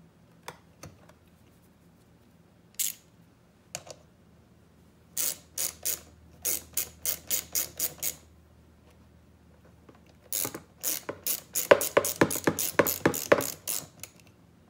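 Hand socket ratchet clicking in several runs as a nut is tightened down, fastening the positive cable to the starter solenoid terminal. The runs of quick, even clicks get longer and louder, and the busiest run comes near the end.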